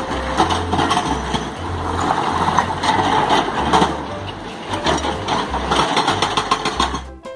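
Plastic toy vehicles clattering and rattling as they are handled, with many quick clicks, over background music with a steady bass line; the clatter stops just before the end.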